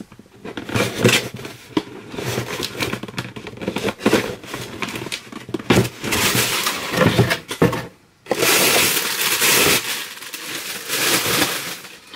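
Scissors slitting the packing tape on a cardboard box, then cardboard flaps and packing material scraping, rustling and crackling. A loud, dense stretch of crinkling starts about eight seconds in and lasts a few seconds.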